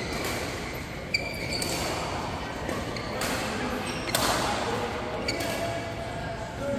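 Badminton doubles rally: racket strings smacking the shuttlecock several times, roughly a second apart, the hardest hit about four seconds in, with short shoe squeaks on the court floor, all echoing in a large hall.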